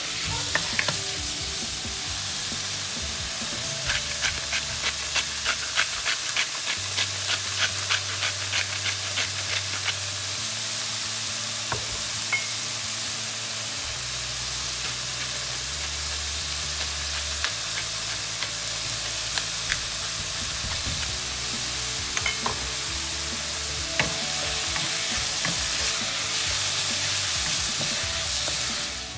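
Chopped chicken and onion sizzling in a non-stick frying pan, stirred with a wooden spatula; a run of quick, regular scraping strokes, about three a second, between about four and ten seconds in.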